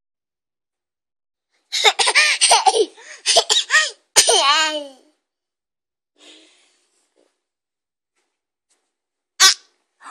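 Toddler laughing: a run of high-pitched, choppy giggles and squeals starting about two seconds in and lasting about three seconds, followed near the end by one short, sharp vocal burst.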